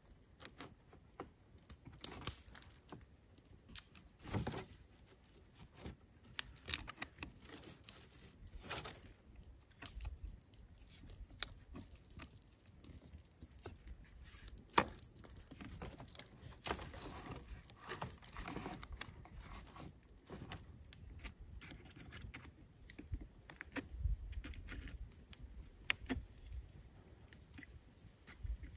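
Close handling sounds of a thin bent wooden hoop being worked and bound against a wall of wooden poles: scattered small clicks, creaks and rustles, with one sharper click about halfway through.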